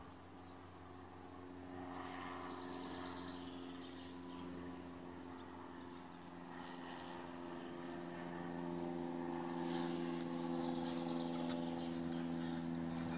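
A steady engine hum, several low tones held together, growing louder over the last few seconds, with faint bird chirps above it.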